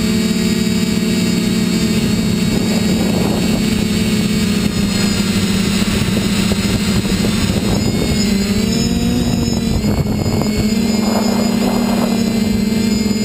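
FPV multirotor drone's motors and propellers whining steadily, picked up close by the onboard camera. The pitch shifts a little about two-thirds of the way through as the throttle changes.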